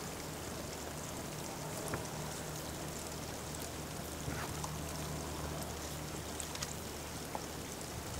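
Steady background hiss with a low hum, and a few faint clicks.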